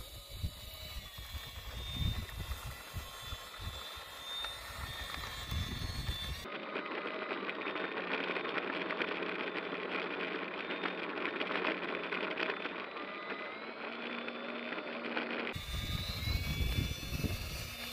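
Twin 64 mm electric ducted fans of an E-Flite A-10 Thunderbolt II model jet whining at low throttle while it taxis, with gusts of wind on the microphone. From about six to fifteen seconds in, the fans are heard from on the model itself as a dense, rushing noise with no low rumble. Near the end the whine shifts down in pitch as the throttle changes.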